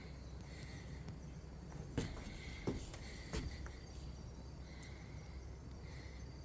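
Insects trilling in short, repeated spells over a low steady rumble, with three sharp clicks about two, two and a half and three and a half seconds in.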